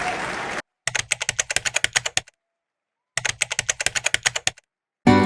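Two bursts of rapid computer-keyboard typing clicks, about ten a second and each lasting over a second, separated by dead silence. A short tail of crowd applause cuts off just before the typing, and music starts right at the end.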